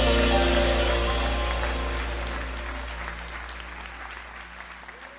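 The last chord of a song ringing out under applause, both fading away steadily.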